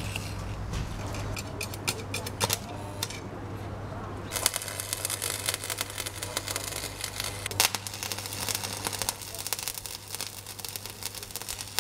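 Arc welding on 6 mm steel rods: the arc crackles and spits, at first in scattered snaps, then in a steady dense crackle from about four seconds in. A steady low hum runs underneath.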